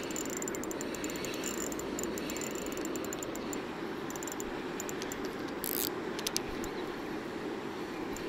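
Spinning reel being cranked on a retrieve: a steady whir with rapid light clicking, busiest in the first few seconds, and a brief rustle just after halfway.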